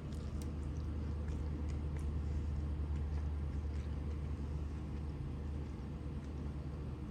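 A low, steady rumble that swells slightly about a second in and eases off after the middle, with a few faint soft clicks over it.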